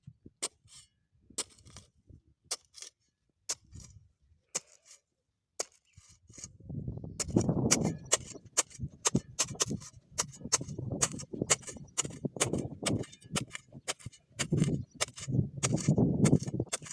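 Grass being cut by hand with a blade tool. A few sharp strikes come first; from about seven seconds in there is a steady run of cuts, three or four a second, with the rustle of grass under them.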